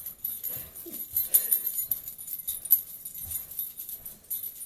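A bunch of keys jangling, shaken unevenly in bright metallic clinks as they are carried around the recorder.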